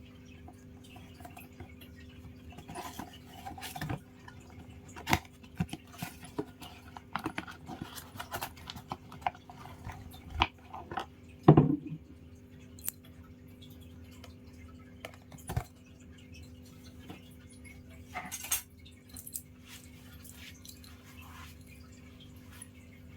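Handling noises from unboxing a perfume: scattered light clicks, taps and knocks of the box and bottle, with one louder knock about halfway through, over a steady low hum.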